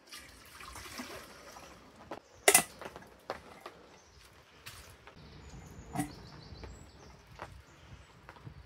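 Water poured from a metal bottle into a metal camp kettle for about two seconds. A sharp knock follows about half a second later, with a few lighter knocks after it.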